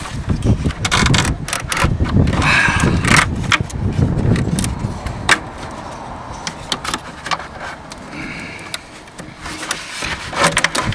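Irregular clicks, knocks and scrapes of parts being handled and pushed into place in a car's engine bay, over a low rumble of handling noise.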